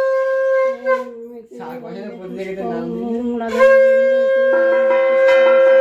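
Conch shell (shankha) blown in long, steady blasts: one at the start and a longer one from a little past halfway, with a lower, wavering tone between the blasts that joins the second one.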